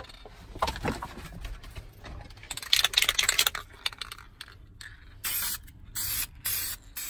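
Aerosol can spraying clear coat onto a leather car seat in four short hissing bursts in the last two seconds, after scratchy handling noises.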